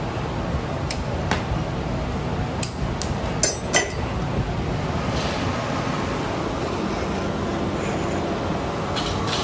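A steady rush of glass-shop burners and blowers, with a handful of sharp metal clinks in the first four seconds as steel glassblowing tools knock against the hot glass and the blowpipe.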